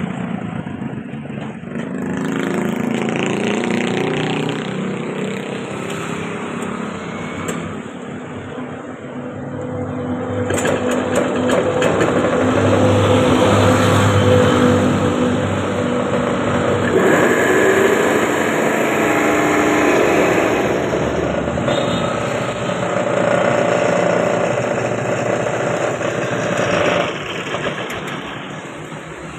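Small single-cylinder petrol engine on a hand-built reel lawn mower running, growing louder and softer in several swells, loudest near the middle.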